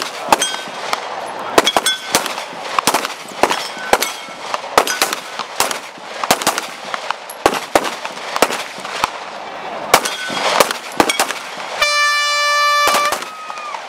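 Glock pistol shots at a firing range, fired singly and in quick pairs at an irregular pace throughout. Near the end comes one steady signal blast lasting about a second, the range's cease-fire signal before the order to unload.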